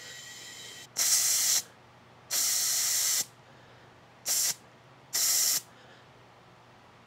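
Compressed air hissing through a trigger tire inflator with a digital gauge into a trailer spare tire. A fainter hiss comes first, then four short squeezes of the trigger send in loud bursts of air, the second one longest. The tire is being topped up from about 43 to 50 psi.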